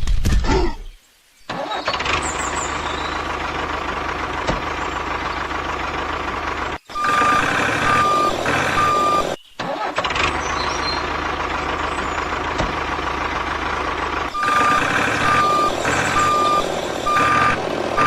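Truck engine running steadily, with a reversing alarm beeping about once every 0.8 s in two spells, one in the middle and one near the end.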